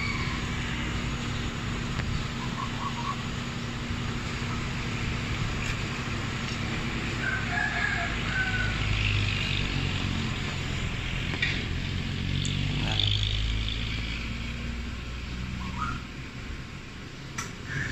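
A rooster crowing several times over a steady low hum that swells louder in the middle.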